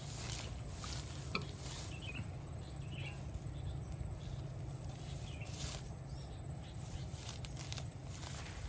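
Outdoor ambience: a steady low rumble with scattered rustles and clicks, and a few brief faint chirps about two and three seconds in.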